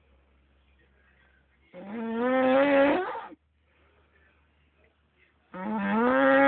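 A man snoring heavily, which the uploader puts down to his drinking. Two long droning snores with a strong pitch, each rising slightly and then holding: one about two seconds in and another near the end, with near silence between them.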